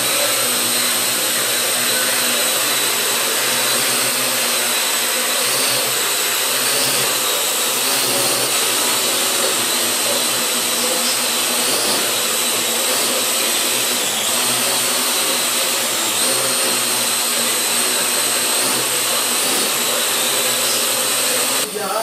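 Parrot AR.Drone quadcopter in flight: its four electric motors and propellers give a steady high whine, the pitch shifting slightly every few seconds as it manoeuvres. The sound drops briefly just before the end.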